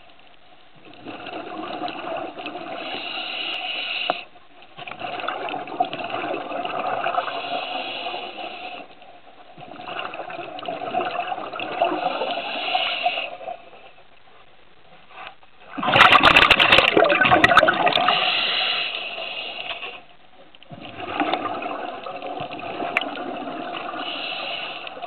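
Scuba diver breathing through a regulator underwater: rushing, bubbling exhalations in long stretches split by short pauses, the loudest and most crackling about two-thirds of the way through.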